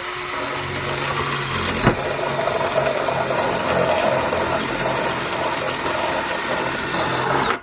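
Power drill running steadily for about seven and a half seconds with a high whine, starting and stopping abruptly: drilling a rivet hole in the minivan's sheet-metal body for the hasp.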